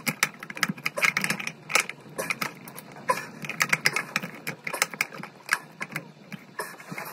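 A silicone-greased rubber cone seal and plastic basin waste being worked by hand up into a ceramic basin's waste hole, giving a rapid, irregular run of small clicks and taps of plastic and rubber against the ceramic.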